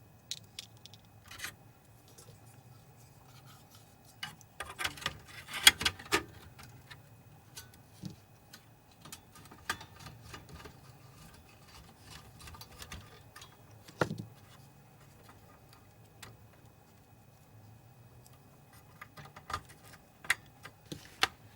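Hands handling small plastic and metal parts inside an opened projector during reassembly: scattered clicks, taps and rubbing as connections are set, with a busier patch of rattling about five seconds in and a single knock about fourteen seconds in.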